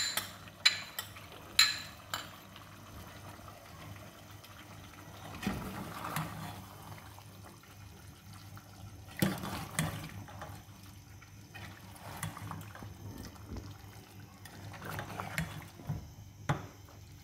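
Metal ladle stirring a wet mix of chicken, tomatoes and yogurt in an aluminium pot, with wet stirring sounds and occasional scrapes and knocks against the pot. Two sharp clinks of metal on the pot come in the first two seconds.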